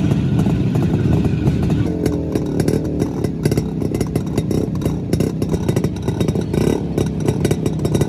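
Two-stroke Jawa/Yezdi motorcycle engines running at low speed, their exhausts crackling with rapid pops and the revs rising and falling as the riders hold the bikes slow.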